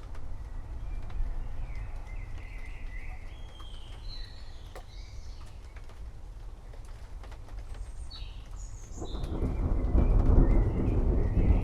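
Forest birds chirping and singing over a steady low background of rain, with scattered drip-like ticks. About nine seconds in, a roll of distant thunder builds and grows louder.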